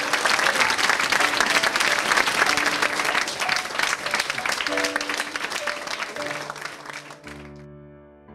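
Audience applauding, the clapping fading out about seven seconds in. Soft music plays underneath and carries on alone as held chords near the end.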